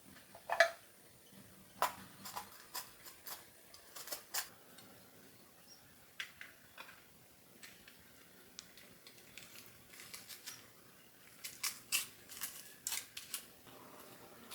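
Scattered light clicks and taps of things being handled in a kitchen, irregular and spaced out. A louder tap with a brief ring comes about half a second in, and a quicker run of taps comes near the end.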